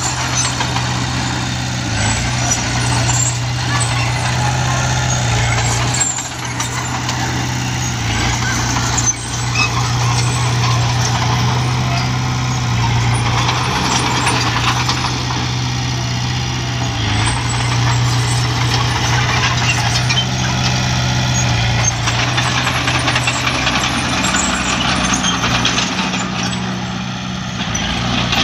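Small crawler bulldozer's diesel engine running steadily while the machine pushes loose soil with its blade, with fine clatter from the steel tracks. The engine note dips briefly a few times as the load changes.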